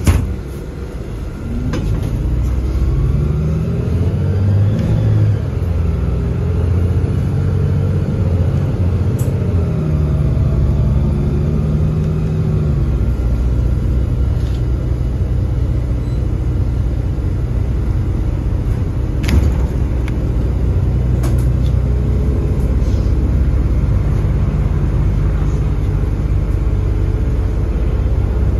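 A MAZ-203 city bus heard from inside the passenger cabin while under way. The engine note rises and falls several times over the first dozen seconds as the bus accelerates, then settles into a steady low rumble of engine and road noise. There is a sharp knock at the very start and another about 19 seconds in.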